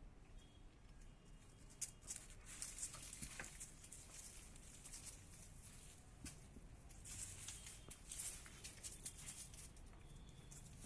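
Faint scuffling and pattering of dogs' paws and claws on the ground as they play-fight, coming in clusters of quick scratchy clicks from about two seconds in.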